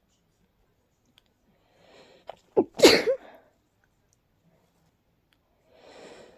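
A person sneezing once, big and messy: a breathy, catching wind-up about two seconds in breaks into one loud sneeze just under three seconds in. Near the end another gasping inhale starts to build toward the next sneeze.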